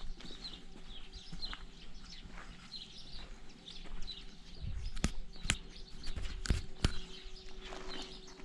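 Small birds chirping again and again, with a few sharp clicks in the middle and a faint steady hum underneath.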